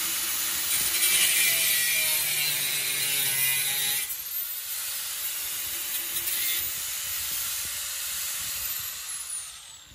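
Grinder with a cutting wheel cutting into a steel bracket: a steady, high-pitched grinding hiss. About four seconds in the cutting eases off, and near the end the wheel's high whine falls in pitch as it winds down.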